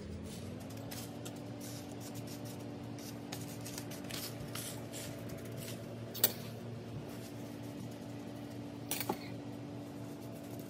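Wet coarse salt crust being pressed and patted by hand onto a fish on a metal baking sheet: soft crunching and scraping, with a sharper tap against the pan twice. Under it runs a steady low hum that rises slightly in pitch about half a second in.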